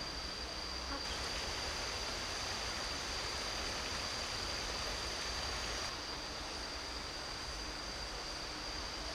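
Steady rush of falling water from a jungle waterfall, with a constant high-pitched insect drone over it.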